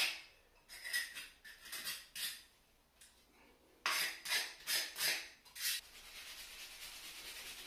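Hand scraping and rubbing strokes along a bathtub's edge where the old caulk has been cut out. A run of quick rasping strokes, a pause, a second run, then a steadier continuous rub near the end.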